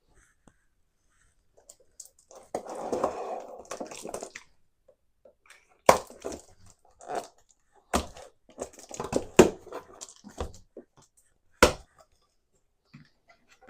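A cardboard box being opened by hand: a stretch of tearing and rustling, then four sharp cracks, with handling and scraping noises between them as the cardboard is pulled apart.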